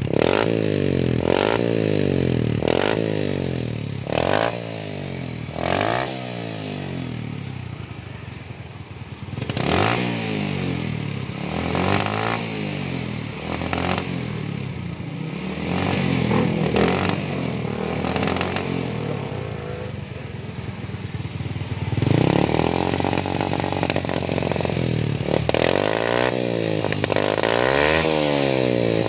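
Yamaha Jupiter's single-cylinder four-stroke engine blipped repeatedly through its stock muffler, which has been gutted and refitted with a homemade baffle, the pitch rising and falling with each blip and one bigger rev near the end. The revving is not smooth, which the mechanic puts down to the carburettor needing setting or possibly a dead spark plug.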